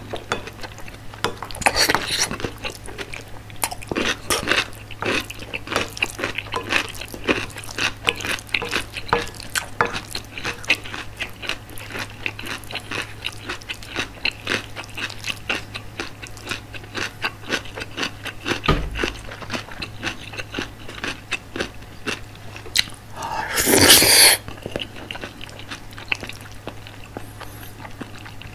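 Close-miked chewing of spoonfuls of curry rice: a steady run of wet mouth clicks and smacks. Near the end there is one louder rushing sound lasting about a second and a half.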